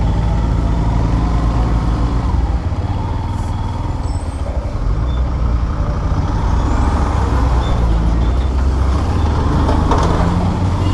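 Heavy truck diesel engines running at close range, a steady low rumble, as an oncoming truck creeps past alongside on a narrow road. A short hiss comes near the end.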